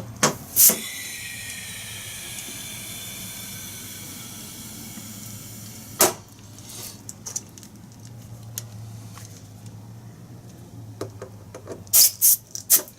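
Compressed air hissing through an air chuck into the fill valve as Air Lift airbag helper springs are inflated for a first test, with a faint whistle that slowly falls in pitch. Sharp clicks of the chuck on the valve at the start, once about six seconds in, and several near the end.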